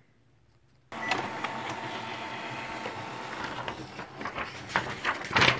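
Epson WF-2860 inkjet printer starting up suddenly about a second in and running its print head and paper feed as it prints a nozzle check pattern. A few sharp clicks and knocks come near the end.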